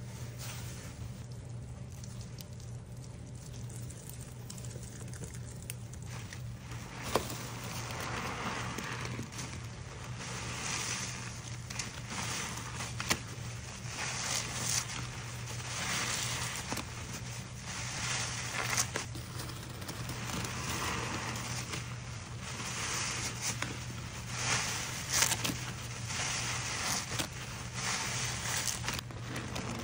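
Horse sponges soaked in soapy water and laundry powder, squeezed and worked by gloved hands in a steel bowl: wet squishing with crackling lather and a few sharp clicks. The squeezes come every second or two from about seven seconds in, over a low steady hum.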